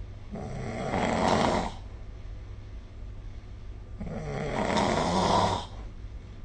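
A sleeping person snoring: two snores about three and a half seconds apart, each growing louder over a second or so and then stopping abruptly.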